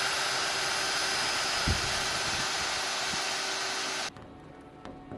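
A small electric motor running steadily with a whirring hiss, cutting off suddenly about four seconds in.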